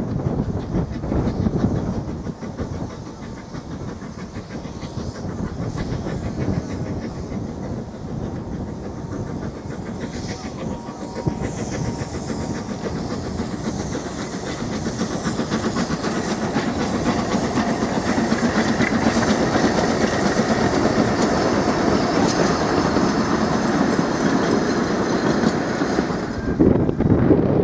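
Narrow-gauge steam locomotive hauling a passenger train, its steam exhaust and wheels clicking over the rail joints, growing steadily louder as it approaches.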